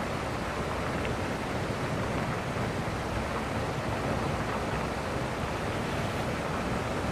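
Wind rushing over the microphone of a camera moving along the beach: a steady, even rush with low buffeting.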